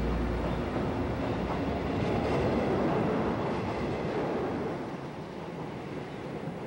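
Rumbling noise of a passing vehicle, swelling to a peak about two to three seconds in and easing off near the end. Background music stops just after the start.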